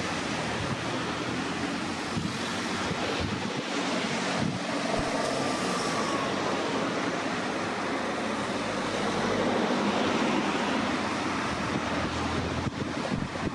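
A vehicle going by: a steady running noise with wind on the microphone.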